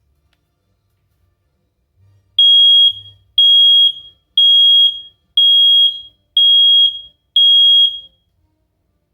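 Household smoke alarm sounding its test alarm: six loud, high-pitched beeps, about one a second and each about half a second long, then it stops.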